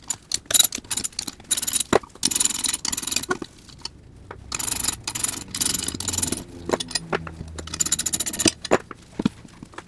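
Socket ratchet clicking in quick runs of about a second each as the motor's mounting bolts are backed out of the steel motor plate. Single sharp metal clinks fall between the runs.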